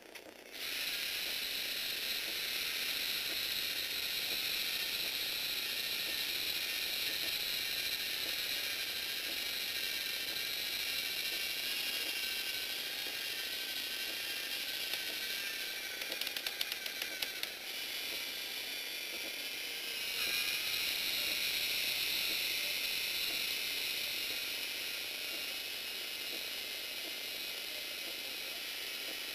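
LEGO Mindstorms NXT servo motors whirring with a high whine as they drive the plastic Technic gears of a crane model's boom. The whir starts about half a second in. A short run of rapid clicks comes a little past the middle, and the whine gets louder shortly after.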